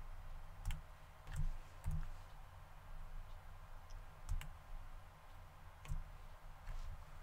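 Sparse, faint clicks of a computer mouse and keyboard, about six scattered through, with a mouse button, scroll wheel and Shift key in use. A steady low hum runs underneath.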